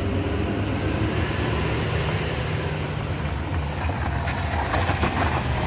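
Steady low drone of heavy truck diesel engines. About four seconds in, a car passes close, its tyres crackling over loose gravel.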